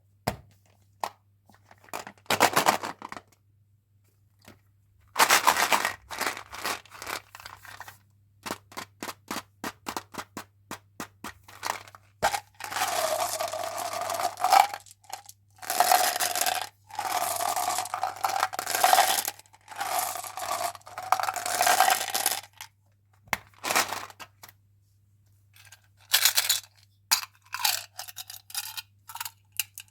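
Candy and gum packaging being handled and opened: rapid sharp clicks and crackles of plastic, then long stretches of wrapper crinkling and tearing in the middle, and a few more crackles near the end.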